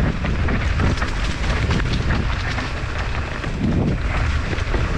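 Wind rumbling steadily on the microphone of a mountain bike riding fast downhill on a dirt singletrack, with the knobby tyres crunching over dry leaves and dirt and the bike rattling over bumps.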